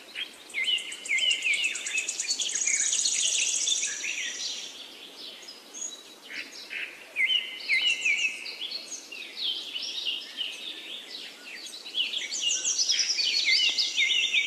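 Small birds chirping and twittering, with quick runs of rapidly repeated high notes twice: a few seconds in and again near the end.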